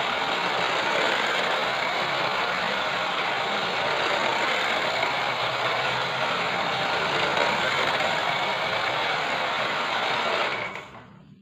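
Radio-controlled Scania 770S model truck running with a steady mechanical whirring and rushing noise, which cuts off sharply near the end.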